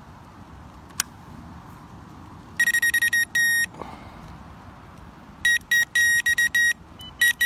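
Electronic carp-fishing bite alarm sounding in rapid strings of high beeps as line is drawn over it while the angler tightens up to the rig. A run of beeps starts about two and a half seconds in and lasts about a second, and a longer run starts just after halfway. A single sharp click comes about a second in.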